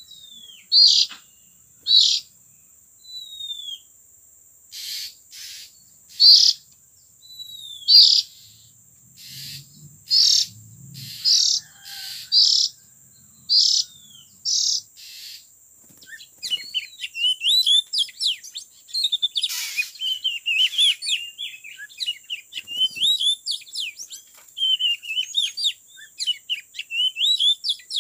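Oriental magpie-robins calling: loud, short, raspy calls repeated about once a second, giving way about halfway through to a rapid, dense twittering song. A faint steady high buzz runs underneath.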